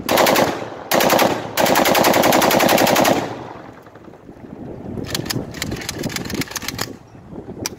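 AK-47-pattern rifle, a locally made copy of a 1975 model, firing full-auto bursts: two short bursts, then a longer burst of about a second and a half. A few quieter separate cracks follow.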